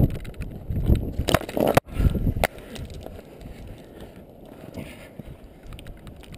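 Sharp knocks and scrapes of hands and boots against rock while downclimbing, several in the first couple of seconds and one strong strike after that, then only faint scuffs and jacket rustle.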